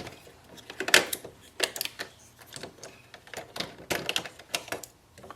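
Plastic ink cartridges being unclipped from an Epson EcoTank printhead carriage and handled: a string of sharp plastic clicks and clacks at irregular intervals, with a cluster about one second in and another near four seconds.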